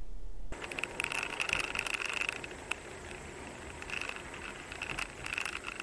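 Road and engine noise heard from inside a moving car's cabin, with small rattling clicks and repeated high chirping squeaks that come and go.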